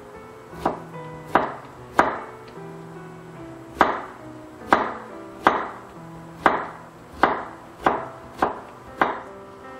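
Kitchen knife slicing a zucchini into matchsticks on a plastic cutting board: eleven separate chops, about one a second, with a pause after the third.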